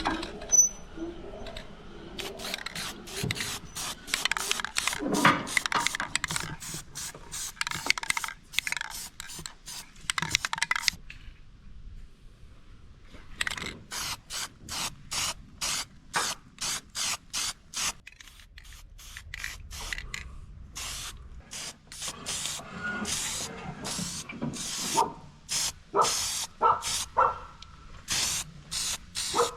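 Rhythmic rasping, scraping strokes, about two to three a second, with a pause of about two seconds partway through.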